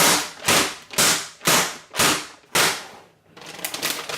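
Soap mould filled with thick hot process soap being rapped down on the work surface again and again to settle the soap, six sharp smacks about two a second, then lighter clattering from about three seconds in.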